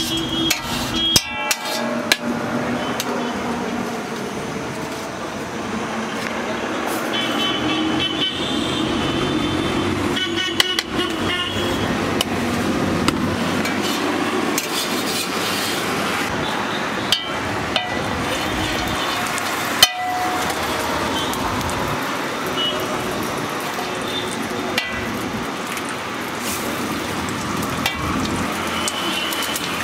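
Street traffic noise with vehicle horns tooting, several toots about a quarter to a third of the way in, and occasional sharp clinks of steel utensils.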